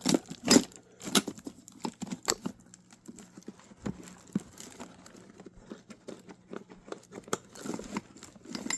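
Irregular clicks, knocks and light rattles of metal tools and parts being handled and set down, a few louder knocks in the first two and a half seconds.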